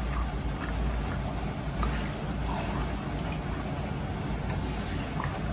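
Raw mutton pieces sizzling in hot ghee in a metal karahi while being stirred, with a few light scrapes of the spatula against the pan, over a steady low rumble.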